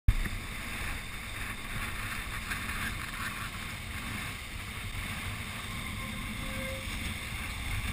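Wind buffeting the microphone with an uneven low rumble, over the steady wash of breaking surf.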